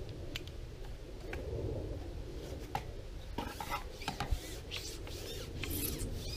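Handling noise from a long carbon fishing pole being fed out by hand: a run of scrapes, rubs and small clicks, starting a couple of seconds in and growing busier in the second half, over a low steady rumble.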